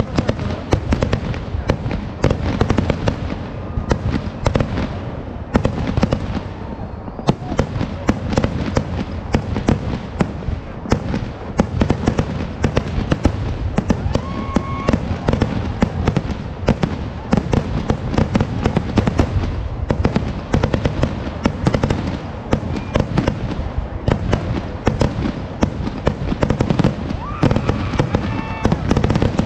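Vedikkettu fireworks display: an unbroken barrage of rapid bangs and crackling as shells launch from the ground and burst overhead.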